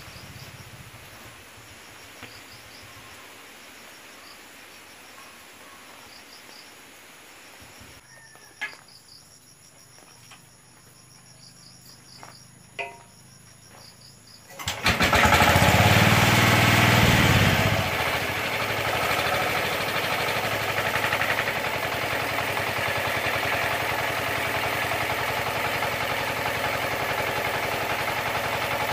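The small 12 HP engine that drives an improvised drum cement mixer starts suddenly about fifteen seconds in. It runs loudest for a few seconds, its pitch rising and falling, then settles into steady running. Earlier there are two sharp knocks, one about nine seconds in and one about thirteen.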